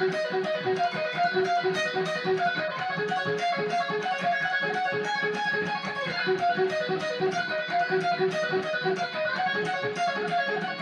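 Electric guitar playing a fast lick of single notes in an even, repeating pattern of wide-interval stretches on the high strings.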